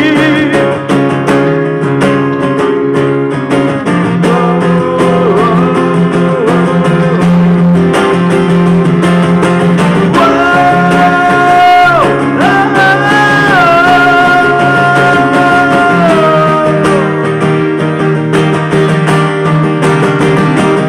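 Live acoustic guitar and bass playing a rock ballad in a passage without lyrics, with a melody of long held notes that slide up and down between pitches over the chords.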